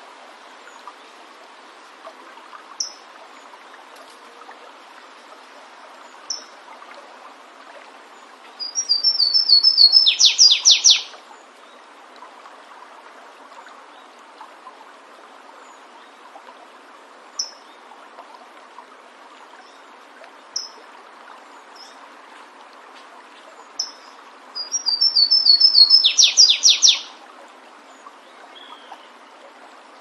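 Flavescent warbler (canário-do-mato) singing: two loud song phrases about fifteen seconds apart, each a run of quick high notes ending in a louder burst, with single short chips in between. A stream rushes steadily underneath.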